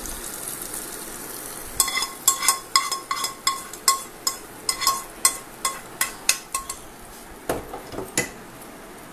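Steel spoon tapping and scraping a tempering of mustard seeds, cumin and green chilli out of a non-stick pan into a glass bowl: a quick run of about twenty sharp clinks with a ringing note, three or four a second, starting about two seconds in, then two duller knocks near the end.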